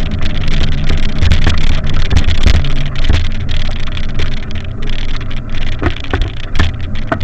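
Wind buffeting the microphone of a camera riding along on a bicycle: a loud, uneven low rumble with frequent short knocks and rattles from the bumpy ride.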